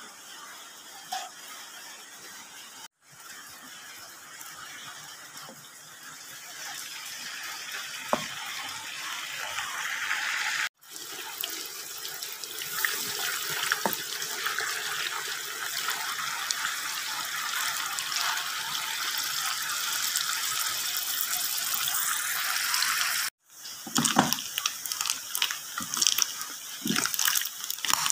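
Pieces of small tongkol fish frying in hot oil in a wok: a steady sizzle that grows louder and holds through the middle. Near the end come spatula knocks and scrapes as the pieces are turned. The first few seconds are quieter, with a spatula stirring the raw fish in a glass bowl.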